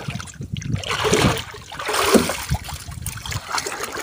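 Seawater splashing and trickling as a swimmer in the water moves against the side of a small boat.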